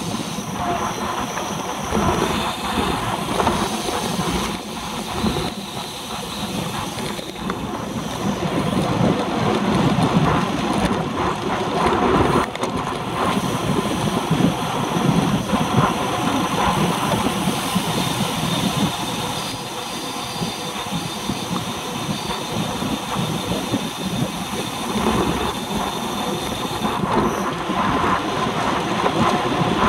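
Wind noise on a handlebar-mounted camera's microphone, with road rumble and rattle from a road bike riding at speed in a pack of racing cyclists.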